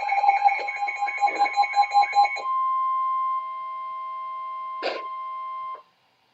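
Emergency Alert System warning tones: a rapidly pulsing beeping over a steady tone for the first couple of seconds, then a steady alert tone alone. The tone drops in level about a second later and cuts off suddenly near the end, with a short click just before it stops.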